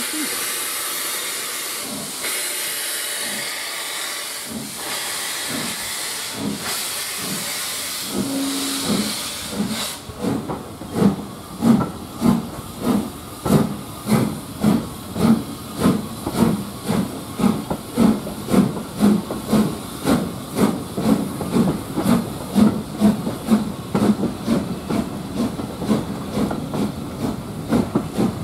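LSWR S15 Class No 506, a two-cylinder 4-6-0 steam locomotive, pulling away from a stand, heard from a carriage window of its train. For about the first ten seconds a steady hiss of escaping steam covers faint, slow exhaust beats; the hiss then drops away and the exhaust chuffs come out strongly and quicken as the engine gathers speed.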